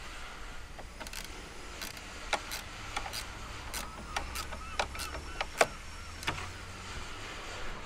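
Spanner being worked on a windstop bracket bolt: a string of irregular, sharp metallic clicks and taps, some louder than others.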